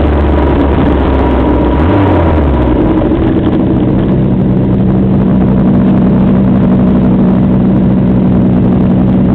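Snowmobile engine running on the trail, loud and continuous; its note shifts about three seconds in and then holds a steady hum.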